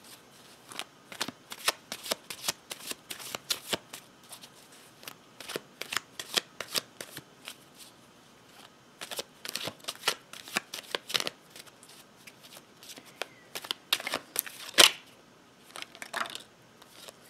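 A Smith-Waite Centennial Edition tarot deck being shuffled by hand, with irregular soft card snaps and riffles. Near the end comes one louder card snap.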